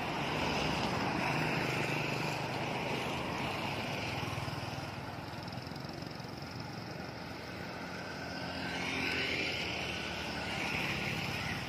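Street traffic on a dirt road: small motorbike engines buzzing past along with cars, swelling twice as vehicles go by.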